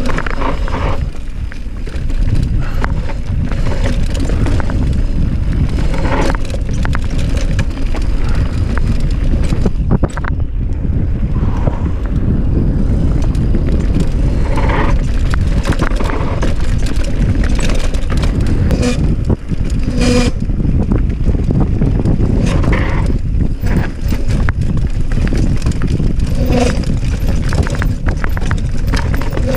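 Mountain bike riding fast downhill over a rough trail. Wind blows on the microphone, and the tyres and the rattling frame and chain clatter over rocks and roots.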